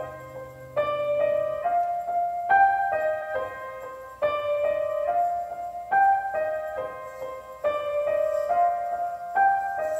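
Background music: a gentle melody of struck keyboard notes that fade, repeating in short phrases.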